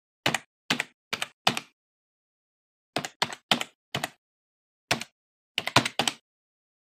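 Keystrokes on a computer keyboard, about a dozen separate clicks in uneven groups with short pauses, typing out a word letter by letter.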